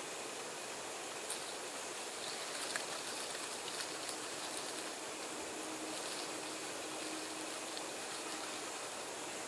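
Steady outdoor background hiss with a few faint clicks and ticks in the first half.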